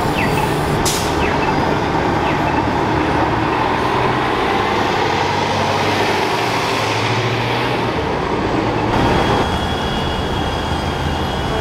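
A city bus driving past close by, its engine and tyre noise swelling and then fading, over a steady low engine hum of traffic. The background sound changes abruptly about nine seconds in.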